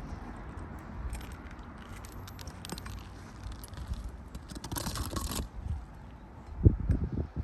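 Metal roofing tool clicking and scraping against asphalt shingles and nails as the nails are worked loose, with a longer scrape about five seconds in and a few low thumps near the end.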